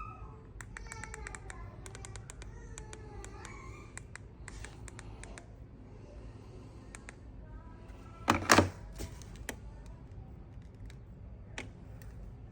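Quick runs of light clicks, then a single loud knock about eight seconds in, with faint voices in the background.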